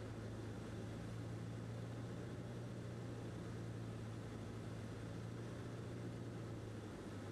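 Cessna 152's four-cylinder Lycoming engine and propeller droning steadily on final approach, heard from inside the cockpit with a hiss of airflow over it.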